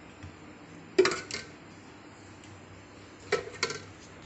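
Steel ladle clinking against a metal dish: two pairs of sharp clinks with a short ring, about a second in and again near the end.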